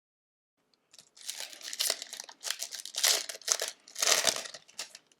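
Hockey card pack's foil wrapper crinkling and crackling as it is handled, in a run of irregular bursts that starts about a second in.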